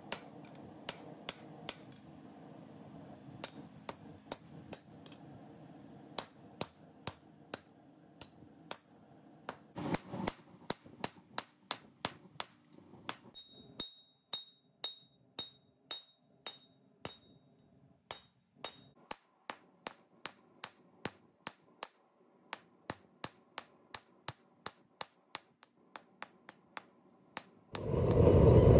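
Hand hammer striking a red-hot steel crowbar on an anvil, in runs of blows about two to three a second with short pauses, each blow ringing high off the anvil. About a second before the end, a loud steady roar from the forge starts.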